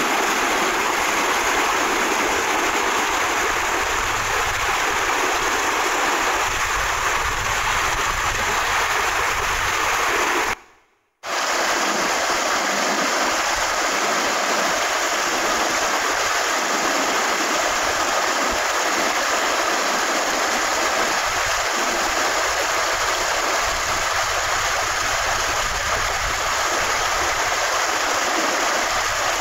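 Fast, muddy stream in high water rushing and churning over rocks, a steady loud rush of water. The sound cuts out for about half a second about eleven seconds in, then the rush resumes.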